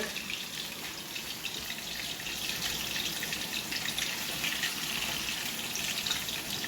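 Marinated chicken searing in a hot pan, sizzling and crackling steadily.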